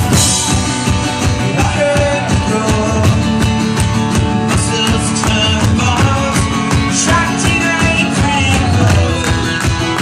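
Live indie rock band playing loud: drum kit hitting steadily under the other instruments, with voices singing.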